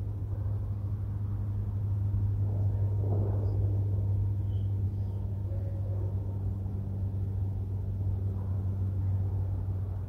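Steady low engine hum and rumble, with a few faint high chirps about three to five seconds in.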